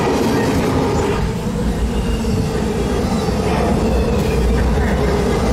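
Norfolk Southern intermodal freight train rolling past close by: the steady rumble and rattle of the cars' wheels on the rails.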